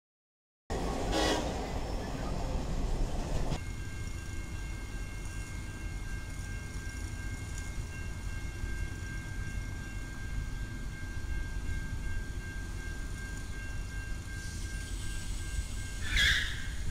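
A freight train rumbles past for about three seconds. Then it cuts to a railroad crossing's warning bell ringing steadily over low traffic rumble, with a brief louder, higher sound near the end.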